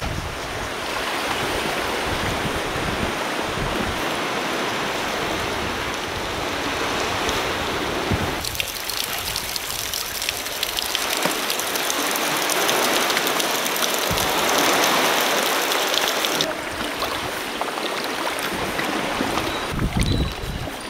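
Sea water washing and splashing around a sea kayak as it is paddled, swelling and easing in surges.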